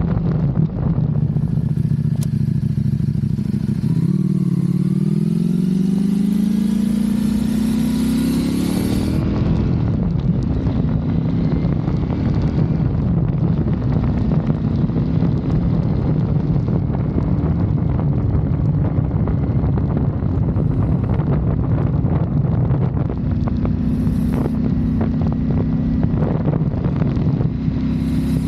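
Motorcycle engine pulling hard with its pitch rising from about four seconds in as the bike accelerates, then running at a steady cruising speed.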